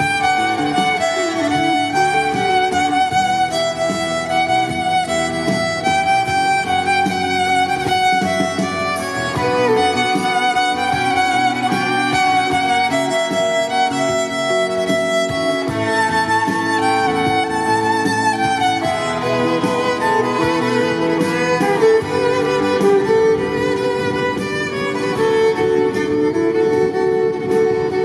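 Violin playing a continuous, flowing melody, amplified through a loudspeaker on a stand.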